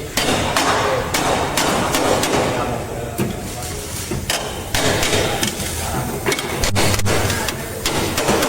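Hammer knocking on sheet metal at irregular intervals, as in panel-beating body repair.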